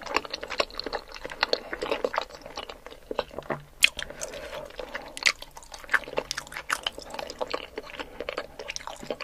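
Close-miked chewing of soft-boiled egg with sauce: wet, squishy mouth sounds with many small sharp clicks at an irregular pace.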